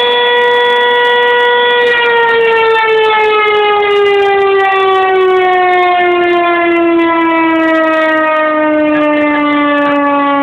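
Fire-station electromechanical alarm siren. It holds one steady wail, then about two seconds in starts winding down, its pitch falling slowly and evenly as the rotor spins down. This is the siren that calls volunteer firefighters out to a call.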